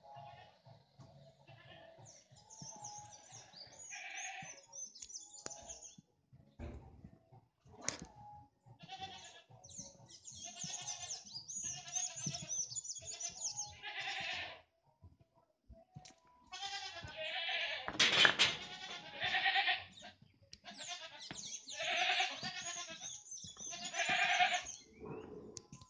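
Livestock bleating again and again, in wavering calls with short pauses between them, loudest around the middle and near the end.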